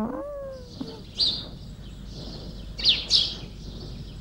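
Birds chirping: a few short, sharp chirps, one about a second in and two in quick succession near the three-second mark.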